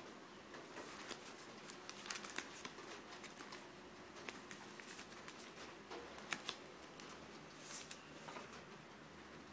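Faint handling of DVDs in soft disc sleeves: scattered small clicks and rustles as the discs are moved, with a short rustle about three-quarters of the way through.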